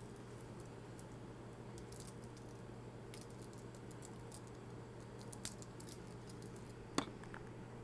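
Quiet room tone: a steady low hum with scattered faint clicks and ticks, and two sharper clicks about five and a half and seven seconds in.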